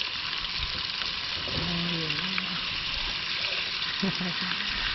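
Brown trout fillets frying in butter in a pan, a steady sizzle.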